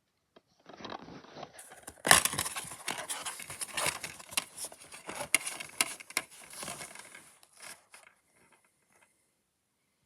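A DVD case and its packaging being handled: rustling, crinkling and clicks, with a sharp click about two seconds in, dying away about eight seconds in.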